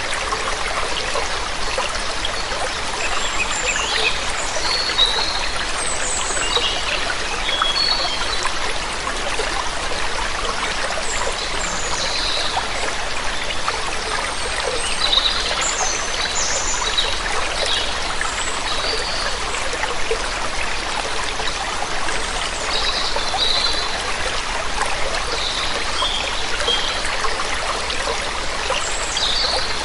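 Steady running water, with short, high bird chirps scattered throughout.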